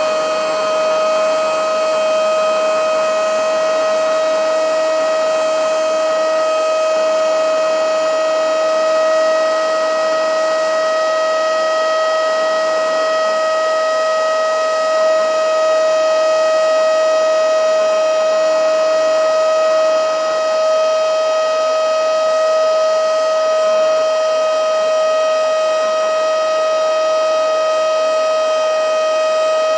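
Battery-powered handheld mini vacuum/blower (XCQ-508) running flat out, its small high-speed motor giving a loud, steady high-pitched whine that holds one pitch over a rush of air.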